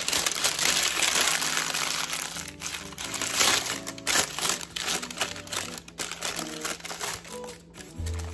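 Crumpled parchment paper crinkling as it is handled, a dense run of quick crackles. Background music plays underneath.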